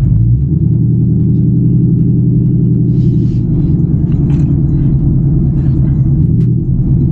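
2024 Ford Mustang GT's V8 engine and exhaust running at low speed, a steady deep drone heard from inside the cabin.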